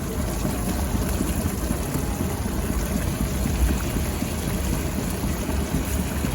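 Pot of blended pepper stew cooking on the stove in palm oil, a steady bubbling and frying noise.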